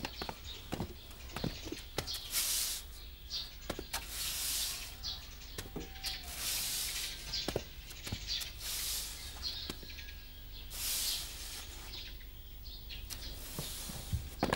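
Broom sweeping a dusty street in long strokes: a swish about every two seconds, with scattered short clicks between the strokes.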